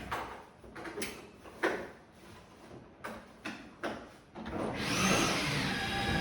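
Air conditioner installation work: a series of sharp knocks and short scraping strokes, about seven in all, spaced irregularly. Background music comes back in near the end.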